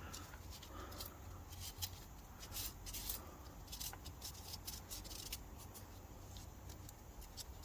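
Faint, scattered light clicks and scrapes of small metal parts being handled, a dozen or so irregular ticks over a low steady hum.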